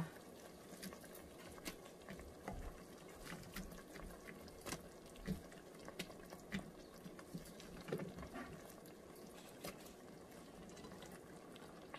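Pot of mung beans simmering gently: a faint, even bubbling with many small pops and ticks scattered throughout.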